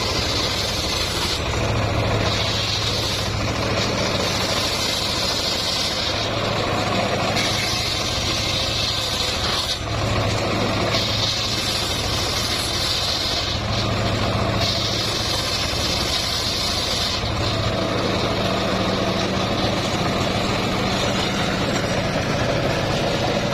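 Homemade engine-driven circular sawmill running steadily with a low hum, while a higher hiss comes and goes every couple of seconds, in keeping with the blade cutting through timber in passes.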